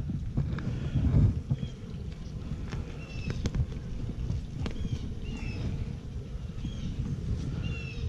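Wind rumble on the microphone, with a few light clicks and knocks from the wooden hive frames and hive tool being handled. A bird chirps briefly every couple of seconds.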